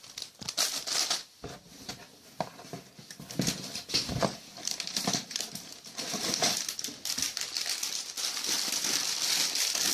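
Sealed plastic bags of LEGO pieces crinkling and rustling as they are handled, with irregular crackles and small knocks throughout.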